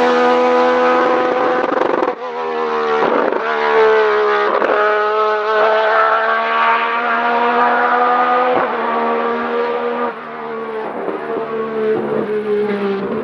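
Slot car's small electric motor whining at speed on the track, a steady high hum that dips briefly as the car lets off for corners, about two seconds in and again around nine and ten seconds.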